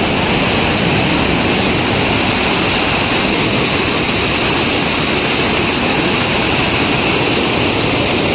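Canal water rushing through a sluice and churning into white foam: a loud, steady rush.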